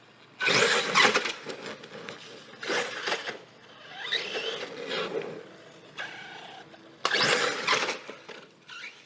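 Electric RC truggy driving in bursts of throttle: four loud bursts of motor and running noise a couple of seconds apart, with quieter running between.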